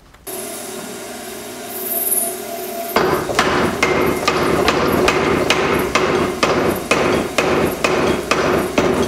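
Mechanical power hammer forging a red-hot steel bar. The machine runs with a steady hum at first, then from about three seconds in its ram strikes the hot bar in a quick, even run of blows, about three a second.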